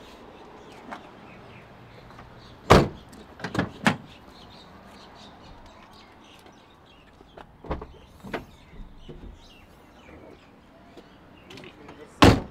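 Car doors of a Suzuki Liana being opened and shut. There is a loud door thud about three seconds in with two smaller clunks just after it, two more clunks around eight seconds, and another loud door slam near the end.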